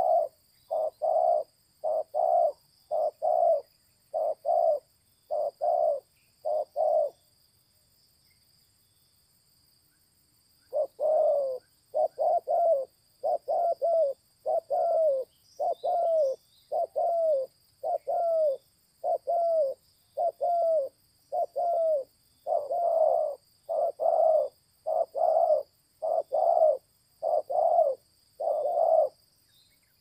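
Spotted dove cooing: a long run of short, evenly spaced coos, about one and a half a second, breaking off for about three seconds a quarter of the way in, then starting again.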